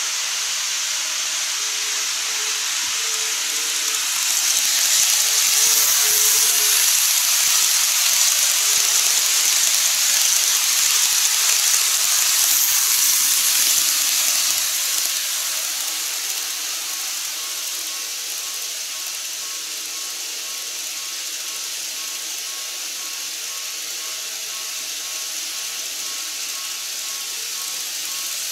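N-gauge model trains running on layout track: a steady hissing whir of small wheels and motors. It swells from about four to fifteen seconds in as a KATO E217 series set passes close by, then eases off.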